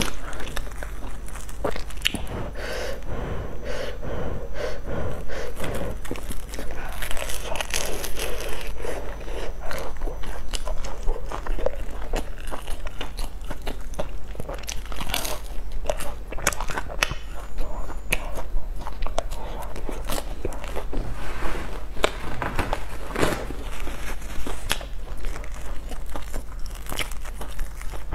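Close-up eating sounds: biting into and chewing crusty fried buns filled with red bean paste, with many small crackles and crunches from the crust.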